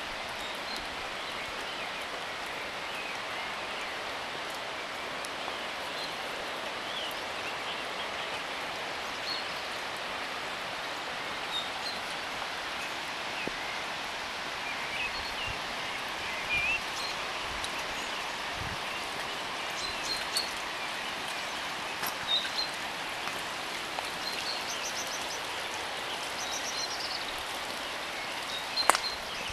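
Steady rain falling, with small birds chirping now and then.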